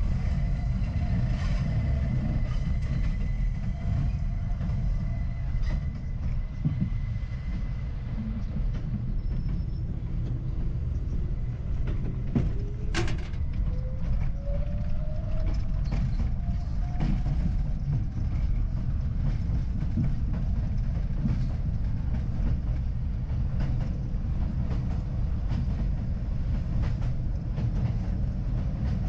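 R62A subway car running along the 7 line, heard from inside the front of the car: a steady low rumble of the train under way. A sharp clank comes about 13 seconds in, with a whine rising in pitch from about 12 to 17 seconds.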